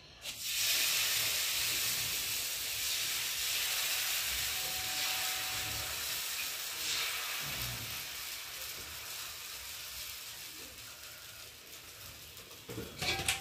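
Rice batter sizzling on a hot tawa. The hiss starts suddenly as the batter is poured, then slowly dies away as it cooks.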